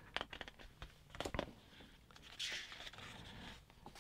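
Faint handling of a hardbound book: a few soft taps and clicks, then a short papery swish of a thick page being turned a little past halfway.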